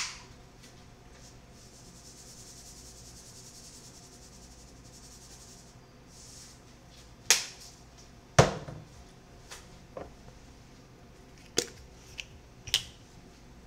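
Kitchen handling sounds: a few separate sharp clicks and knocks of utensils, the loudest a heavier thud about eight seconds in, with a soft high hiss for a few seconds in the first half.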